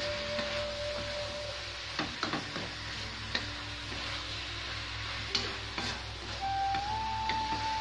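Stir-frying beef skin and green chilies in a wok: a wooden spatula scrapes and knocks against the pan over a steady sizzle. Soft background music holds long notes, rising to a higher note near the end.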